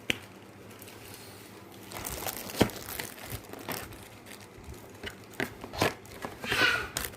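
Crinkling and rustling of something handled by hand, with scattered sharp clicks and knocks, starting about two seconds in and louder near the end.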